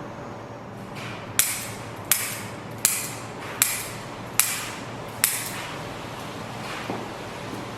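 Six sharp clicks at an even pace, about one every three-quarters of a second, each ringing briefly, then a fainter one near the end.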